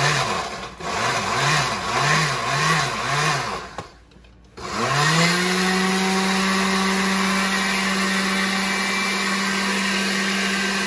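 Oster countertop blender grinding graham crackers into crumbs. It is pulsed in about six short bursts, each a quick rise and fall in pitch. After a brief pause it spins up with a rising whine and runs steadily at one pitch.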